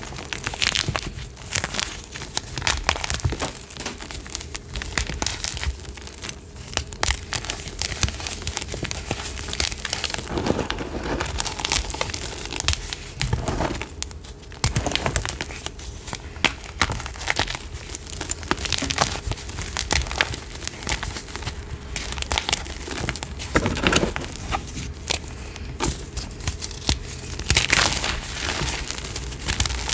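Chalk being crushed by hand close to the microphone: a dense, irregular crunching and crackling as the pieces crumble, with a few louder crunches along the way.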